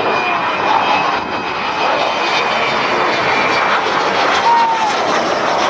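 Avro Vulcan bomber's four Rolls-Royce Olympus turbojets running loud and steady as the aircraft passes overhead.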